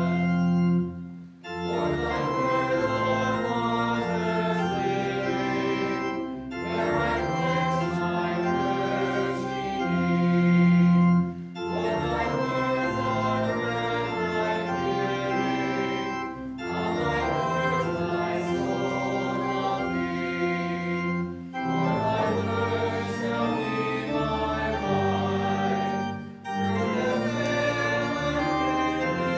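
Church organ playing a hymn, with a congregation singing along. It moves in phrases of about five seconds, with a short break between lines.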